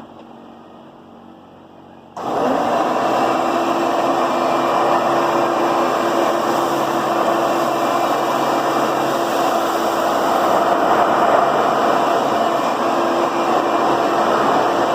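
Hoover vacuum cleaner switched on about two seconds in, its motor starting suddenly and then running steadily with a constant hum and rushing air.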